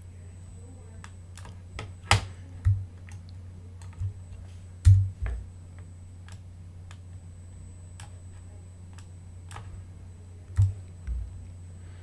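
Scattered clicks and taps of a computer keyboard and mouse, with a few louder knocks among them, over a steady low hum.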